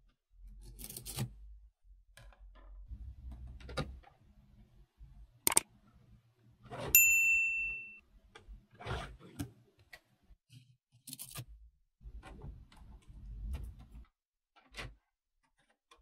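Small magnetic balls clicking and scraping as fingers press on blocks of them and slide a thin plastic card between them, with low handling bumps. About seven seconds in a single loud bell-like ding rings for about a second.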